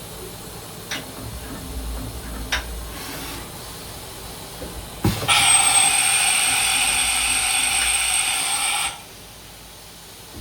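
2010 Southwestern Industries Trak LPM CNC vertical machining center running: two sharp clicks with a low hum between them, then a loud hiss with a steady high whine that starts abruptly about five seconds in and cuts off nearly four seconds later.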